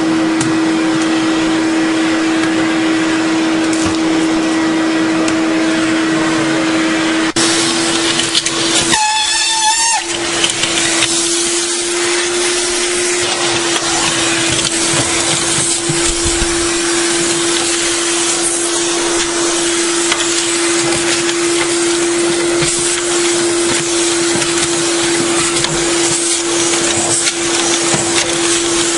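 Vacuum cleaner running steadily with a constant motor whine as its hose sucks up the floor under a stove, with a brief warbling whistle about nine seconds in.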